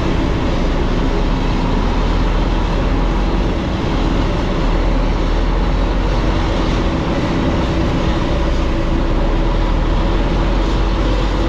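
Truck engine and road noise heard from inside the cab while driving, a steady low drone with a faint constant whine.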